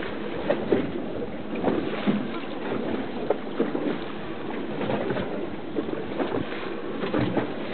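Wind buffeting the microphone on a moving boat at sea, an uneven rush with frequent irregular gusty bumps over a steady wash of water noise.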